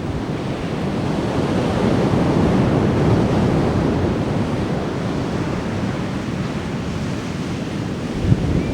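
Ocean surf breaking and washing up a beach: a wash of noise that swells over the first few seconds and then eases. Wind buffets the microphone near the end.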